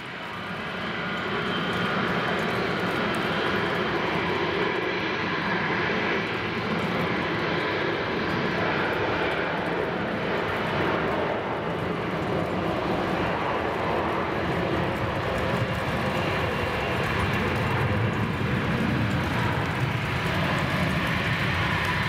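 Bombardier Global Express business jet taxiing, its two Rolls-Royce BR710 turbofans running with a steady jet rush and low rumble. The sound swells over the first couple of seconds, then holds level.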